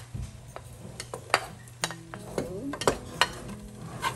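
Onions and chopped garlic sautéing in oil in a nonstick pot, with a low sizzle and a utensil clicking and scraping repeatedly as the garlic is pushed off a plate and stirred in.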